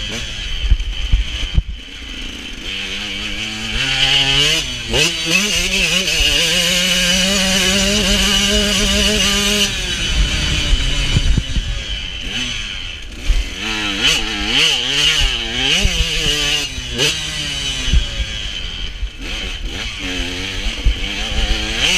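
Two-stroke engine of a KTM 125 SX motocross bike under way. It revs up, holds high revs for several seconds, drops off the throttle suddenly about ten seconds in, then surges up and down in repeated bursts. Wind rush and chassis clatter run underneath.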